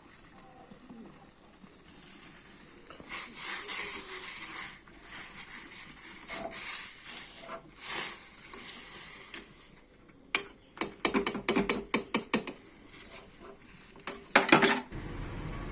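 Kitchen handling sounds at a gas stove: irregular hissing and rustling bursts, then a fast run of about a dozen sharp clicks over two seconds, and a steady low hum starting near the end.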